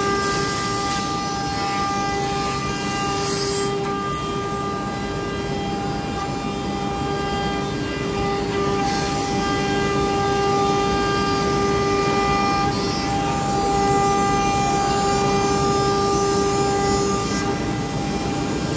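CNC router spindle cutting polycarbonate sheet: a steady high-pitched whine with several overtones, holding an even pitch, over a constant rushing noise.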